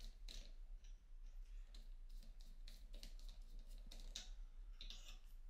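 Faint, scattered light clicks and taps as a watch case is handled and released from a bench press, with a few slightly louder clicks past the middle.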